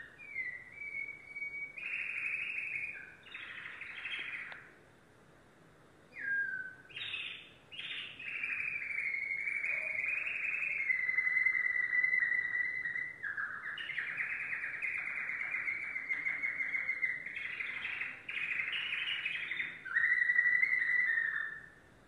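Domestic canary singing: a few short whistled notes and chirps, a brief pause, then from about eight seconds in a long unbroken run of rapid trills that stops just before the end.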